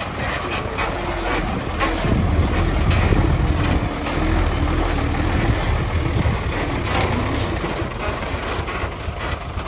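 Bulldozer's diesel engine running, its low rumble growing louder about two seconds in, with scattered short knocks and clanks.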